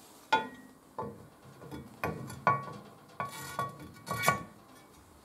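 Audi A4 B5 steel control-arm mounting plate clinking against the front strut's top mount and its studs as it is fitted on: a series of about eight sharp metallic clinks with a brief ring, unevenly spaced.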